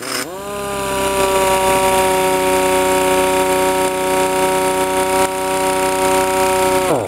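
Jupiter Pneumatics twin-hammer air impact wrench running free with no load: the air motor spins up quickly to a steady high whine with a hiss of exhaust air, then winds down sharply near the end as the trigger is released.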